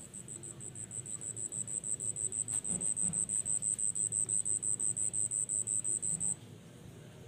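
An insect chirping: a high-pitched pulsed trill of about seven pulses a second. It grows louder over the first couple of seconds, then stops abruptly about six seconds in.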